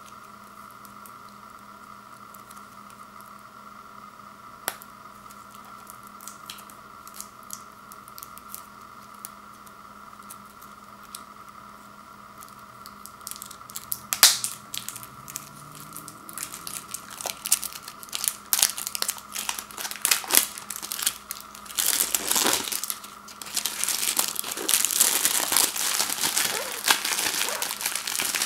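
Clear plastic shrink-wrap being picked at and peeled off a boxed pack of CD-Rs. At first there are only faint scratches and clicks. From about halfway it turns to crinkling and tearing that grows louder and denser as the wrap comes away, over a faint steady hum.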